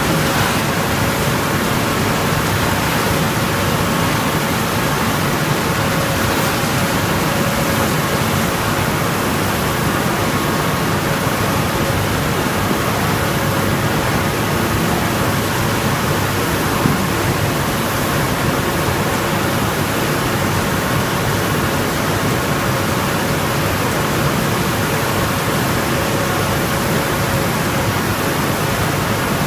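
Vertical ring die wood pellet mills (XGJ560, 132 kW) running under load and turning out pellets: a loud, steady, dense mechanical noise with a faint steady tone in it.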